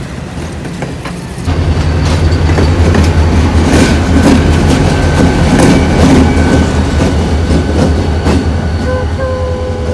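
Cuyahoga Valley Scenic Railroad passenger train running, heard as a loud steady rumble with the clickety-clack of wheels over rail joints. It gets louder about a second and a half in.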